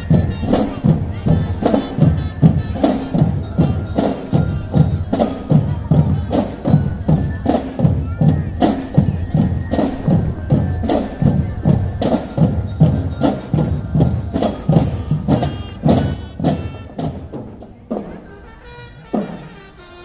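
Marching drum band playing a steady percussive beat, low drum strikes two to three a second with bright metallic hits over them. Near the end the playing dies down to a few scattered hits.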